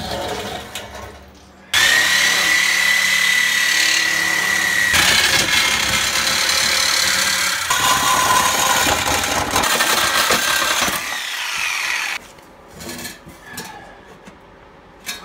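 A power tool runs for about ten seconds, starting a couple of seconds in, with a steady whine over a harsh noise. The whine's pitch steps lower partway through, and the tool stops suddenly near the end.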